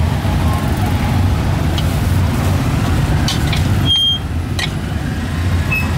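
Metal ladle clinking and scraping against an aluminium wok while greens and meat are stir-fried, a few sharp ringing clinks over a steady low rumble of street traffic.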